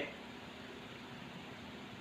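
Steady low hiss of room tone with a faint even hum, no distinct events.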